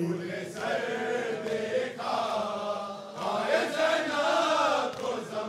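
Men's voices chanting an Urdu noha lament in a slow, drawn-out melody, with two short breaks between phrases.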